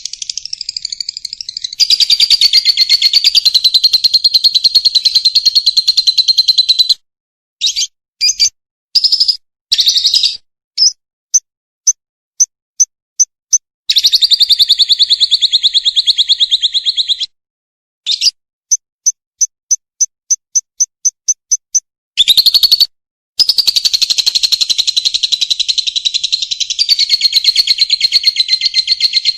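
Lovebird singing in long, loud, shrill rapid trills, broken in the middle by short bursts and runs of quick repeated chirps, with sudden cut-offs between phrases.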